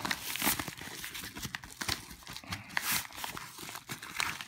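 Packing paper crinkling and rustling as it is pulled and unwrapped by hand, in irregular crackles with a few louder bursts.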